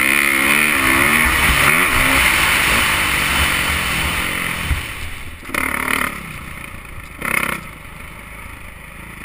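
Dirt bike engine heard from on board, its pitch falling and rising with the throttle under a hiss of wind and track noise. After about four seconds it drops to a lower, quieter running, broken by two short louder bursts.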